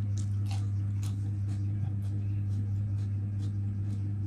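A steady low hum with a few overtones, over soft, irregular crunching from raw vegetables being chewed.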